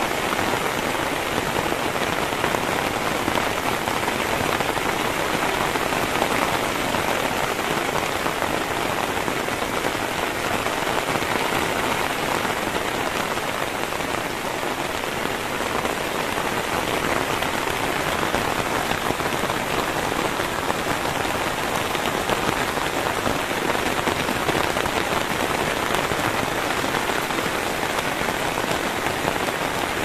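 Heavy rain falling steadily: a dense, even hiss of rain with no letup.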